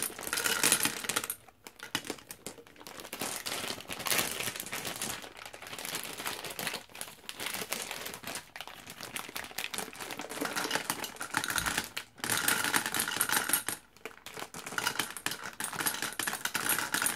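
Peanut M&Ms being poured from a bag into the glass globe of a gumball machine: a dense clatter of small candies rattling against the glass and each other, with a few short breaks in the pour.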